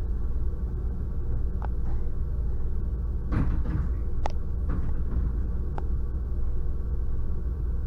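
Electric commuter train's sliding doors closing: several clunks and knocks, loudest around three to four seconds in, over a steady low rumble inside the stationary carriage.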